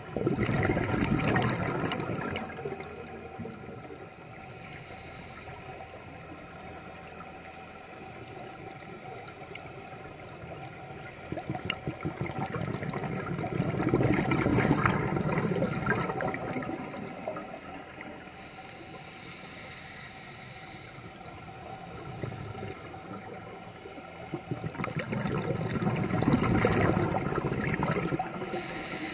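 Scuba divers exhaling through their regulators, heard underwater: three long bursts of bubbling, crackling noise about twelve seconds apart, near the start, in the middle and near the end. A faint steady hum lies underneath.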